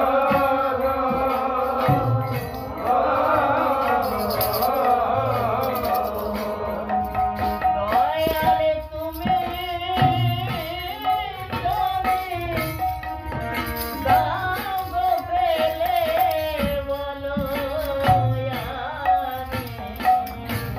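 A man sings a Bengali song to harmonium accompaniment, with regular deep strokes on a khol barrel drum. The voice comes in clearly about a third of the way through, over the held harmonium notes.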